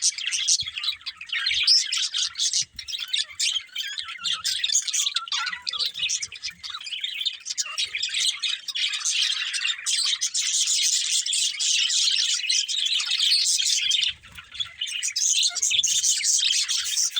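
Budgerigars chirping and chattering without a break, a dense stream of rapid high chirps, with a short lull about fourteen seconds in.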